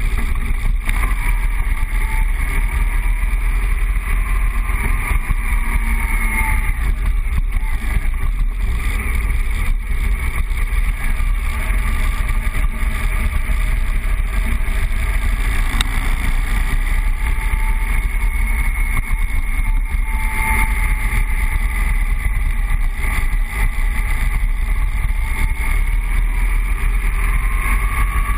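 BMW 1200 boxer-twin motorcycle engine running as the bike rides along, heard from a bike-mounted camera with steady wind rumble on the microphone. The engine's pitch rises and falls with the revs, climbing near the end.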